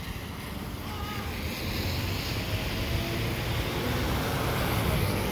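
Gusting storm wind buffeting the microphone, mixed with traffic driving on a wet street. The noise swells over the first couple of seconds and then holds steady.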